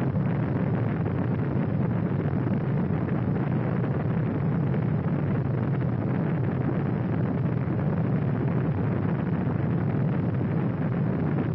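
Rocket engine firing: a steady, dense rushing noise of exhaust, heaviest in the deep low end.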